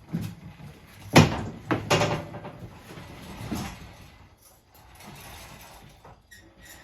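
A few knocks and clunks of things being handled, the loudest about a second in and another near the middle, followed by faint rustling. No engine is running.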